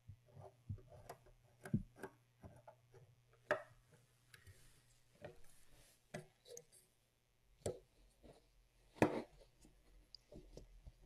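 Quiet, irregular clicks and taps of a Torx screwdriver and small metal parts as the mounting screws are turned in loosely to fix the Sony OA-D34V 400k floppy drive in its metal sled. The sharpest knock comes late on.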